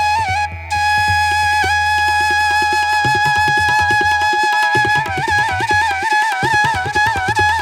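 Instrumental background music: a flute holds a long note, then turns in quick wavering ornaments about five seconds in, over a steady drum beat and a low sustained bass.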